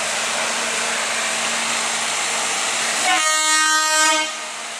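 Matheran narrow-gauge toy train running with a steady rushing noise, then its locomotive horn sounding one steady blast of just over a second about three seconds in.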